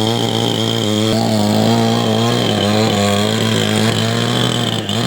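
Two-stroke chainsaw running hard as it cuts into a palm tree trunk, its engine note wavering up and down under the load.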